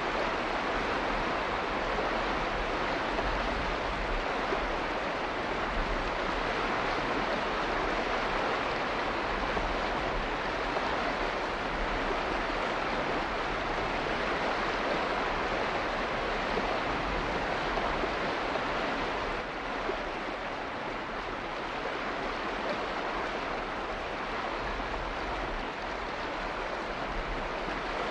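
Steady rushing water: an even hiss with no separate drops or splashes standing out.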